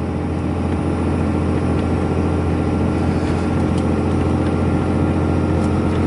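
The 6.7-litre Cummins turbo-diesel straight-six of a 2012 Ram 2500 pulling steadily uphill at half throttle, heard from inside the cab: a steady low drone with a thin steady whine above it.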